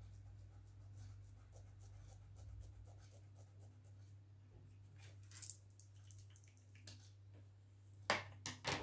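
Marker scratching on sketchbook paper in many short, faint colouring strokes, with a few sharper strokes near the end. A steady low electrical hum runs underneath.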